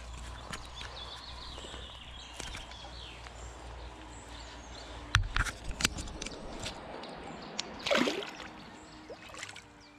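A caught chub is let go by hand into shallow river water and splashes off, a short sharp splash about eight seconds in. A few sharp knocks come about halfway through.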